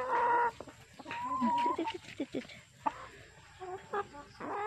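Rhode Island Red chickens clucking and calling, with a few drawn-out calls among shorter clucks.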